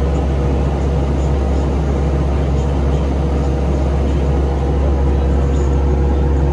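Diesel engine of a piece of earth-moving equipment running steadily, heard from inside the cab: a constant low drone with a steady whine above it.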